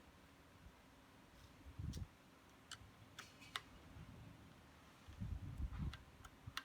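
Scattered sharp clicks and a few low knocks, of small parts being handled.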